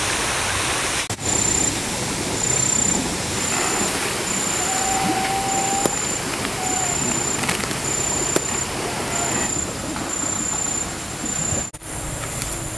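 Steady outdoor rushing noise, with an insect chirping in short high-pitched buzzes, a little over one a second. A brief steady whistled note comes near the middle.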